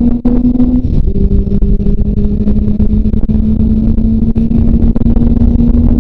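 Kawasaki ZRX400's inline-four engine running under way, with heavy wind rush over the helmet microphone. About a second in, the note breaks off briefly and comes back lower, a gear change, then rises slowly as the bike picks up speed.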